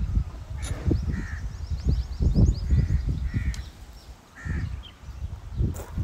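A crow cawing about five times, with a small bird's quick high chirps in the first few seconds, over irregular low thumps and rumble.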